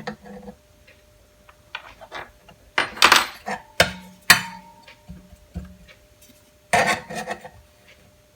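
Metal parts of a benchtop belt sander's tilting belt table being handled and knocked together while it is checked for square: a few sharp metallic clanks and clicks, the loudest about three to four seconds in, one ringing briefly, and another clank near seven seconds.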